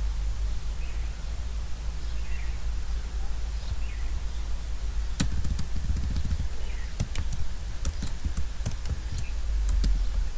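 Computer keyboard keys clicking now and then over a steady low hum: a single click about five seconds in, then a run of clicks in the second half as text is deleted.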